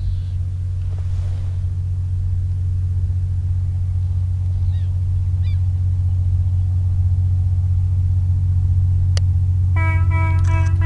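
EMD GT22 diesel-electric locomotive working hard up a grade: a steady deep engine rumble that grows slowly louder as it approaches. Near the end its horn sounds, one held note.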